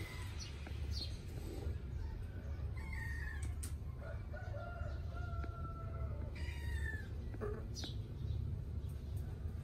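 A few faint animal calls: short falling cries about 3 s and 7 s in, and a longer held call in between lasting about two seconds. A steady low rumble runs underneath.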